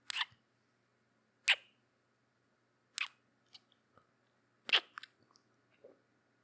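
Four short, wet kisses close on the microphone, about a second and a half apart, with a few faint lip clicks between them.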